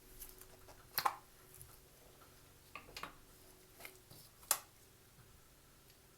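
A spoon and a honey jar being handled: a few sharp clicks and light knocks of kitchen utensils, the clearest about a second in, at three seconds and at four and a half seconds.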